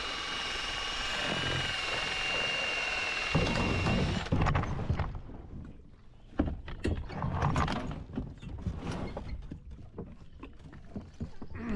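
A kayak's motor running with a steady whine, which cuts off about four seconds in. Then come irregular knocks, clunks and scrapes as the kayak's hull slides onto the roller bars of a floating kayak launch dock.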